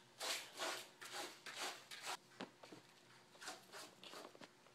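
A cat's fur rubbing and brushing against the microphone as the cat is handled, heard as a string of short scratchy rustles with a sharp click about two and a half seconds in.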